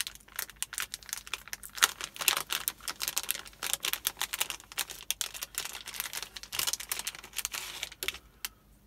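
Thin plastic anti-static bag crinkling as it is handled and opened and a circuit board is pulled out of it: many quick, irregular crackles that die away shortly before the end.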